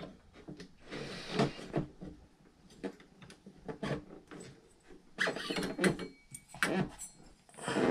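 Handling noises from an RC boat's plastic hull and its cooling-water hose: scattered knocks, clicks and rubbing as the oiled hose is pushed through a tight hole.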